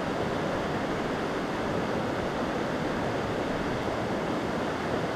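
Small rocky mountain stream running over stones: a steady rush of flowing water.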